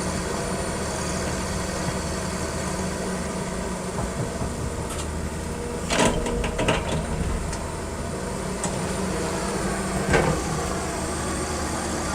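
Excavator diesel engine running steadily, with a quick cluster of metallic clunks about six seconds in and another clunk about ten seconds in.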